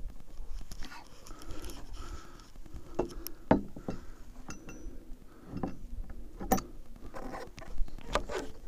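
Handling of small door-handle hardware: scattered clicks and taps of spacers, rubber pads and metal parts as a handle is fitted to a tractor cab door.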